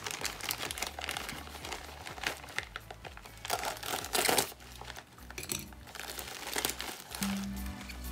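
Plastic courier mailer being torn open and crumpled by hand: irregular crinkling and rustling, with a louder tearing rush about four seconds in.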